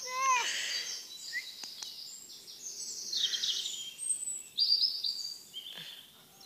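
Songbirds singing in the surrounding trees: high warbling trills and chirps that overlap one another, with a short run of rapid lower notes right at the start.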